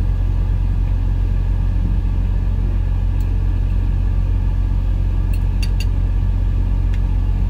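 Steady low rumble of an idling diesel engine, heard inside a semi-truck's sleeper cab. A few light clinks of a metal fork on a plate come a little past halfway.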